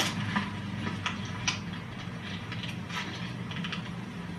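Steady low hum and hiss of an old film soundtrack during a pause in the dialogue, with a few faint scattered clicks.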